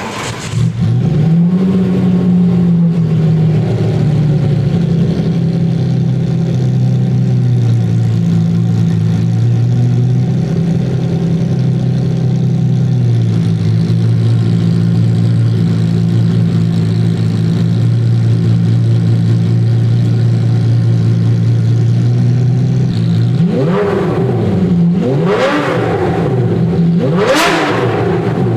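Supercar engine cold-starting: it catches and runs at a raised fast idle that drops to a lower, steady idle about halfway through. Near the end it is given several sharp throttle blips.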